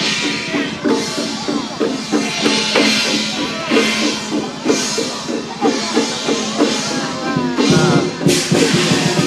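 Chinese dragon-dance percussion band of drum and clashing cymbals playing a steady beat, about three strokes a second, with a few short sliding tones over it near the end.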